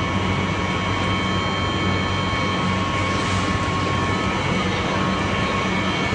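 Wood pellet production line running: the pellet mill and its conveyors keep up a steady low machine hum with several constant high whining tones over it.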